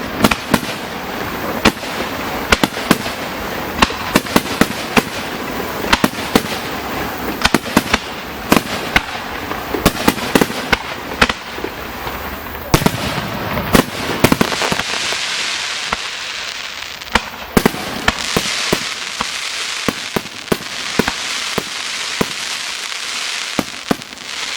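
Aerial fireworks: for about the first half, many sharp bangs from shells bursting in quick succession. Then fewer bangs over a dense, steady hiss of fine crackling.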